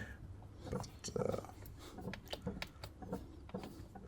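Faint, irregular small clicks and taps of a plastic laptop bottom cover being handled and pressed back into its clips.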